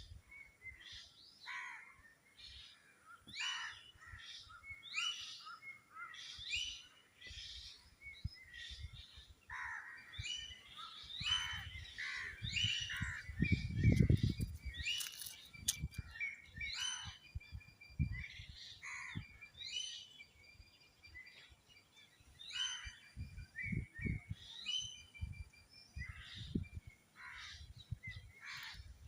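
Birds chirping and calling: many short, repeated chirps from several birds, overlapping throughout. A low rumble or thud comes in bursts underneath, loudest about halfway through.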